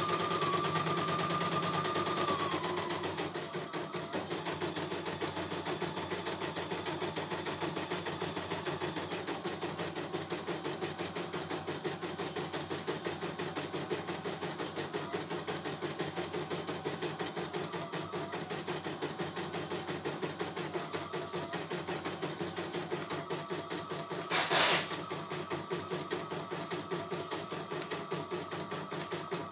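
CNY E900 computerized embroidery machine stitching a test design, a rapid, even needle rhythm with a higher whine over it for the first couple of seconds. About three-quarters of the way through comes one short, loud rasping burst.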